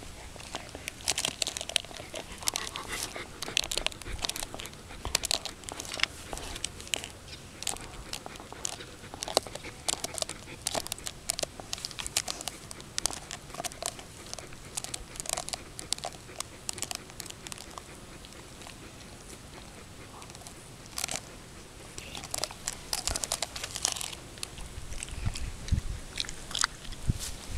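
A German Shepherd gnawing a large bone: irregular crunches and cracks of teeth on bone, pausing for a few seconds past the middle before starting again.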